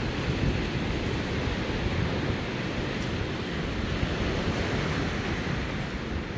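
Stormy sea surf breaking and washing on the shore, with wind buffeting the microphone in a dense low rumble.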